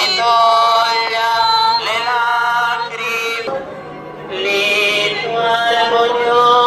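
A religious hymn sung in long held notes, phrase after phrase, with a short pause about three and a half seconds in.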